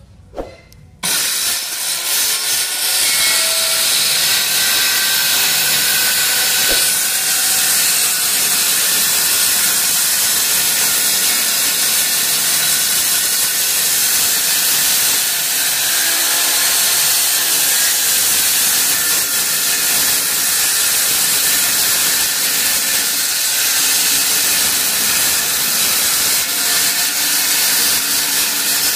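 Handheld electric circular saw starting up about a second in and cutting lengthwise along a wooden window sash frame: a steady, high-pitched whine and hiss of the blade biting through the wood.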